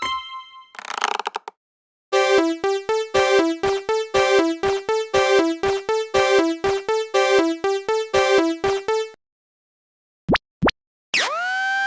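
Synthesized level-crossing warning tones from a cartoon crossing: a fast run of short electronic chime notes on a few low pitches, about four a second, lasting some seven seconds. Near the end come two quick blips, then a held horn-like tone that swoops down as it starts.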